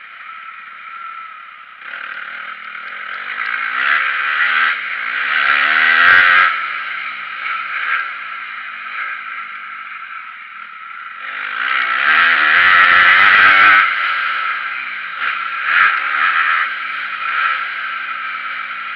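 Dirt bike engine on a motocross track, revs rising and falling as the rider works the throttle and gears. It surges loudest about six seconds in and again for a couple of seconds past the halfway point.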